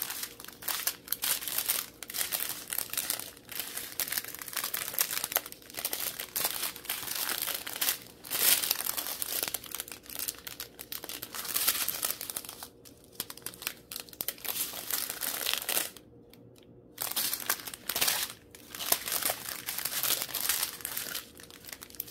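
Small clear plastic bags of square diamond-painting drills crinkling and rustling as they are handled and shuffled through, with a pause of about a second three quarters of the way in.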